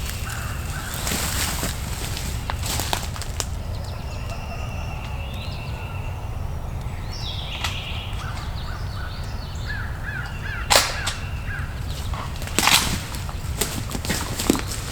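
Woodland birds calling, with American crows cawing, including a quick run of about six notes. Three sharp knocks come through near the end over a steady low rumble.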